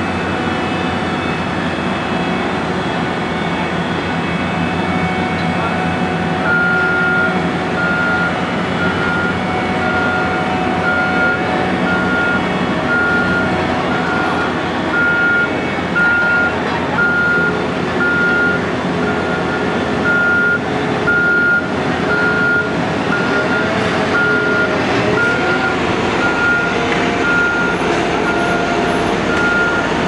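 Heavy diesel engines of an asphalt paver and road rollers running steadily, with a backup alarm beeping at a steady pace from about six seconds in.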